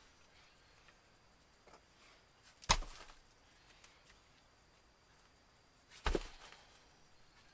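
Two sharp knocks about three and a half seconds apart, each with a brief rattling tail, over faint background.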